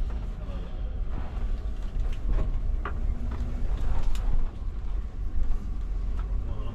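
Intercity bus heard from inside the cabin: a steady low engine and road rumble, with scattered creaks and rattles from the bus interior.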